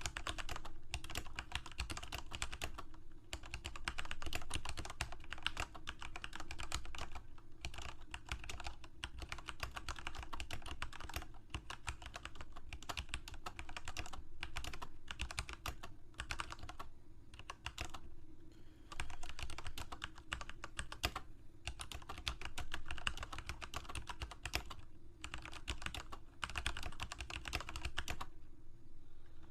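Steady typing on a computer keyboard: dense runs of quick key clicks broken by brief pauses.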